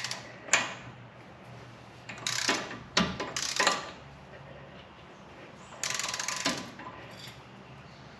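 A 1/2-inch-drive torque wrench ratcheting on an axle nut in three short runs of strokes, with a sharp single click about half a second in and another about three seconds in.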